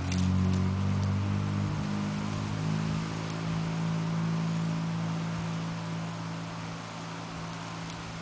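A low engine hum that steps in pitch a few times early on, then holds steady and fades gradually toward the end.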